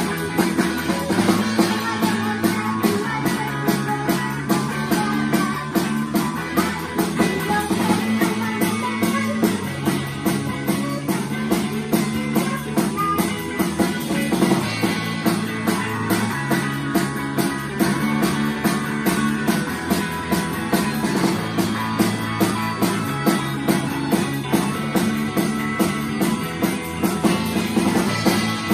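A rock band playing live: guitars over a steady drum-kit beat, with a low line stepping between notes every second or so and no singing.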